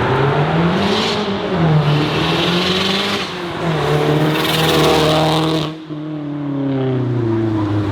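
Turbocharged car accelerating hard past: the engine note rises and falls, with a loud turbo hiss, the wastegate screaming under boost, that builds over a few seconds and cuts off sharply about six seconds in. After that the engine note drops as the car goes by.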